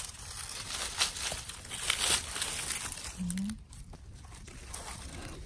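Dry leaf litter rustling and crackling as it is disturbed, with scattered sharp crackles.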